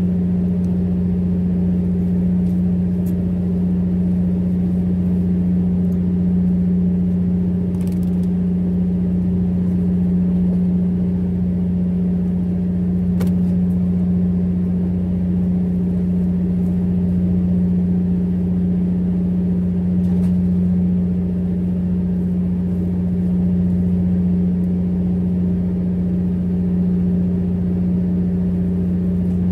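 Fishing boat's engine running steadily: a loud, even, deep drone with a constant hum, and a few faint clicks over it.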